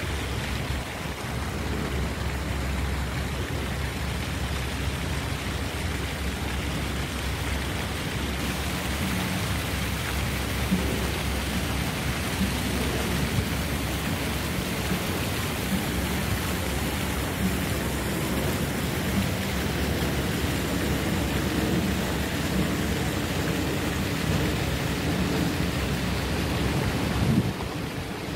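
Steady rushing noise of wind buffeting the phone's microphone, mixed with choppy harbour water against the seawall.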